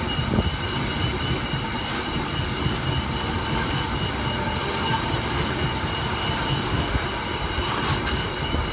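Loaded ore wagons rolling past at close range: a steady rumble of steel wheels on rail, with a thin steady high tone over it.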